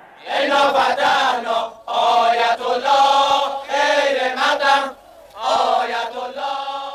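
A large crowd chanting a slogan in unison, phrase after phrase with short breaks between them.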